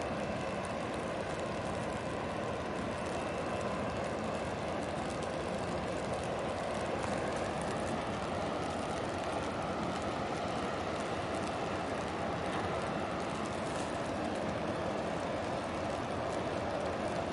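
Steady rumble and hum of a large container ship under way, her engine and propeller running at a constant pace as she passes close by, with no change in level.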